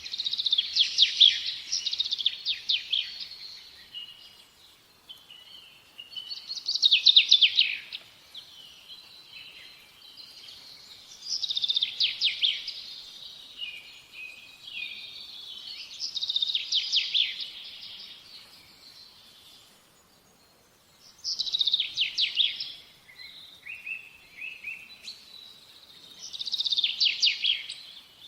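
A songbird singing: six loud song phrases, one about every five seconds, each a quick run of rapid high notes, with softer twittering between them.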